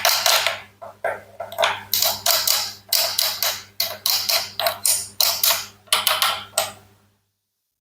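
A quick run of crunchy cutting strokes, about two a second, each fading quickly, over a faint steady hum, stopping shortly before the end: a knife slicing through toy fruit, or a crunch effect laid over the cutting.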